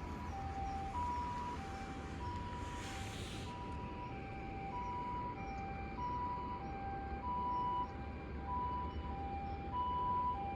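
Japanese ambulance siren giving its two-note 'pee-po' call, a high and a low note alternating steadily over a low rumble. A brief hiss sounds about three seconds in.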